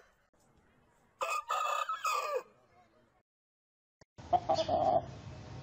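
A big rooster crowing once, a call of a little over a second that ends on a falling note. After a brief silent break, a short loud call comes a little after four seconds in, followed by a steady low hum and hiss.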